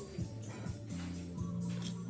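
Background music with held low notes and light percussion.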